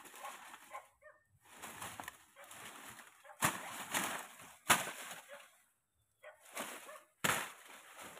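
Dry banana leaves rustling and crackling in several separate bursts as they are pulled and broken off a felled banana plant, some bursts starting with a sharp snap.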